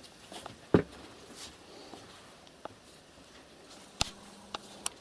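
A few scattered knocks and clicks over a quiet background, the loudest about three-quarters of a second in and a sharp click at about four seconds.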